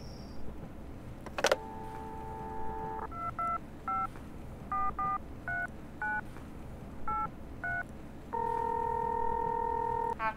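A touch-tone landline telephone: a click as the line opens, a dial tone, nine beeping digits dialed, then one long ringback tone on the line.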